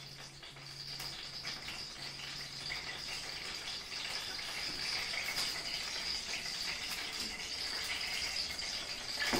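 Sourdough dumplings frying in a skillet of hot oil: a steady sizzle with fine crackling and popping that grows louder.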